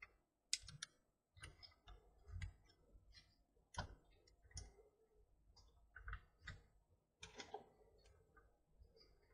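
Faint, irregular clicks and taps of plastic parts on a coil-winding jig being handled and fitted together by hand.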